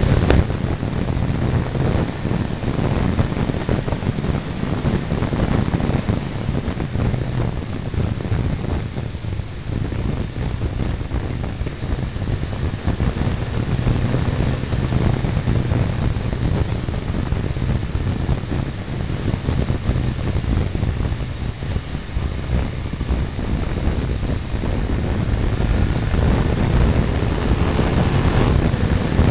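Triumph Tiger 955i's three-cylinder engine running under way, with heavy wind rush on a mirror-mounted microphone; the engine note climbs and gets a little louder near the end.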